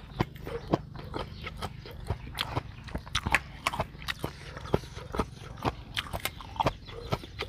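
Close-up chewing of crunchy green papaya salad with raw shrimp: an irregular run of crunches and mouth clicks, several a second.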